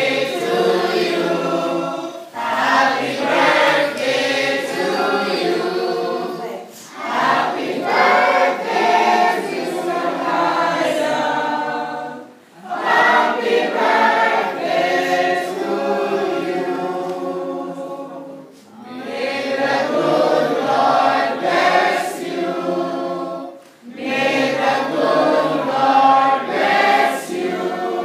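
A group of people singing together unaccompanied, in phrases several seconds long with brief pauses between them.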